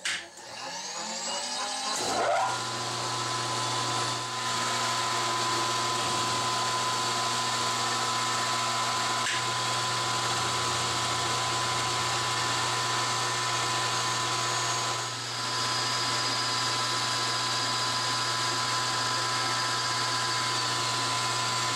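Drill press motor starting and spinning up over about two seconds, then running steadily as a twist drill bores into an aluminum plate.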